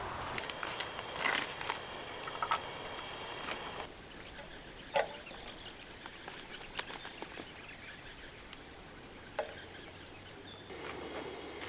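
Scattered light clicks and knocks over a steady background hiss. The background drops abruptly about four seconds in and rises again near the end.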